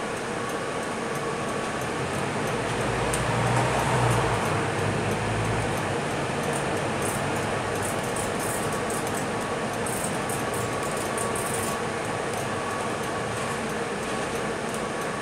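Inside a Scania K320UB city bus under way: the engine's low drone with road noise and a steady air-conditioning hum. The engine note swells a few seconds in as the bus pulls away from a standstill and picks up speed. Faint light ticks come partway through.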